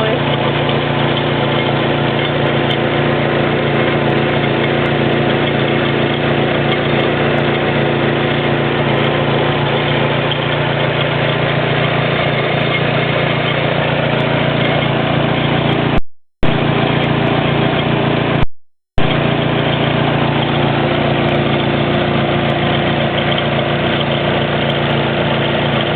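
Nissan SR20DET turbocharged 2.0-litre four-cylinder engine running at a steady idle, with the slapping of a stretched timing chain against its guides. The sound cuts out twice, briefly, about two-thirds of the way through.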